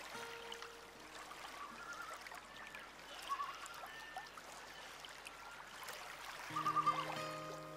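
Soft background music with a watery, flowing ambience and short warbling bird-like trills; a sustained chord comes in near the end.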